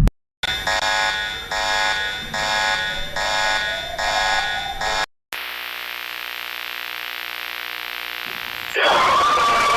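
Electronic emergency alarm tones. A pulsing multi-tone alarm beeps about six times, a bit more than once a second. After a brief break a steady droning tone follows, and near the end it is cut off by a louder, harsher sound with a wavering pitch.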